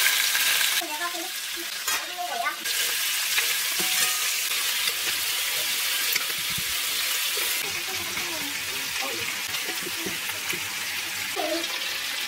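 Food frying in a hot pan: a steady sizzle and crackle, a little louder in the first second.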